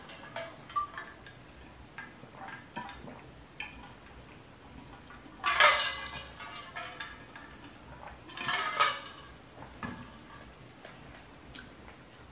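Insulated stainless-steel water bottle handled while drinking: scattered light clicks and knocks, with two louder metallic clinks about five and a half and eight and a half seconds in.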